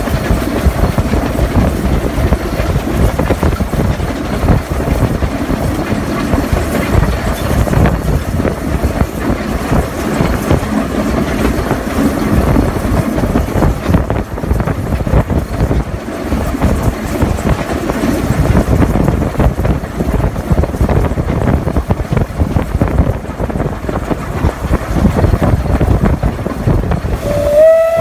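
Narrow-gauge steam locomotive Isle of Man Railway No. 12 Hutchinson heard from its footplate while running: a loud, steady rush of running noise. Near the end the locomotive's steam whistle starts, one note that rises slightly and then holds.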